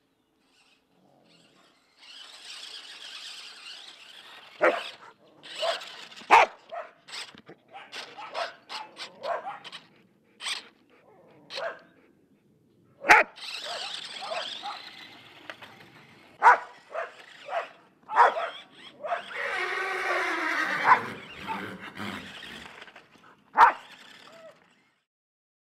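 Australian Shepherd barking over and over in short sharp barks at a Tyco remote-control car. The car's electric motor whirs in stretches between the barks. Near the end comes a louder sound of about two seconds that falls in pitch.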